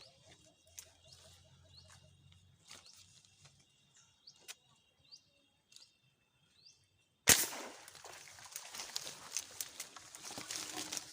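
Small birds chirping quietly with repeated short rising notes. About seven seconds in, a single sharp crack, the loudest sound here and likely the airgun firing a fishing dart, is followed at once by continuous rustling, splashing noise.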